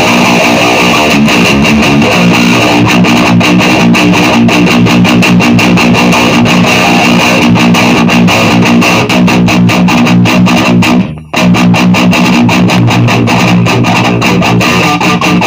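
Electric guitar played through a Solar CHUG distortion pedal: a heavy distorted riff of fast palm-muted chugs over held low notes, with a short break about 11 seconds in.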